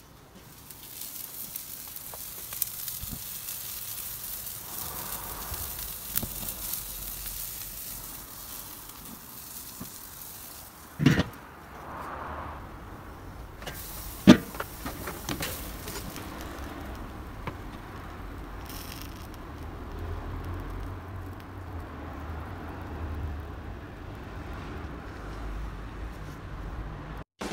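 Steak sizzling on the grate of a charcoal kettle grill over direct high heat, with two sharp knocks midway.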